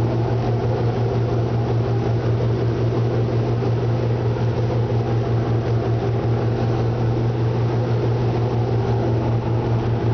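Motorboat engine running steadily at speed, a constant low drone, with the rush of the churning wake.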